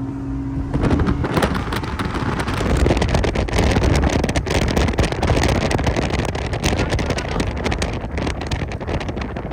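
Race boat running at speed in strong wind: heavy wind buffeting on the microphone and rushing water drown out the engine, whose steady tone is heard only in the first second or so.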